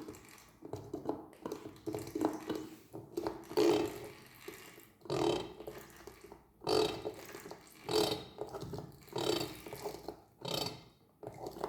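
Gear oil being pumped into a Mariner 25 hp two-stroke outboard's gearcase in repeated strokes about every second and a half, each with a gurgle as trapped air works out: the lower unit is still not fully filled and bled of air.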